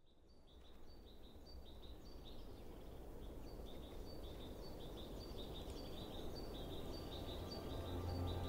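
Outdoor nature ambience fading in from silence and slowly growing louder: a steady wash of wind-like noise with rapid, repeated high-pitched chirping throughout.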